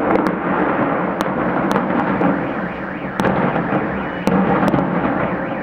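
Fireworks display: a continuous rumble of shell bursts, with sharp cracks every second or so.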